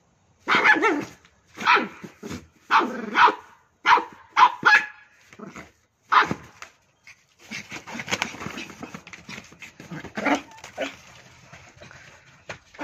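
West Highland white terrier puppy barking in short, separate bursts, then from about seven seconds in a longer unbroken stretch of rougher noise as it tussles with a fabric dog bed.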